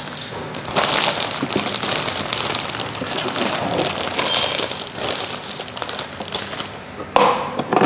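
Clear plastic packaging bag crinkling and rustling as the toy pottery wheel's plastic parts are pulled out of it, with a sharper knock near the end.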